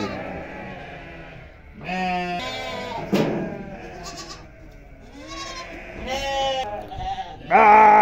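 A pen of goats and sheep bleating, several separate wavering calls one after another, the loudest near the end: the flock calling for their feed at feeding time.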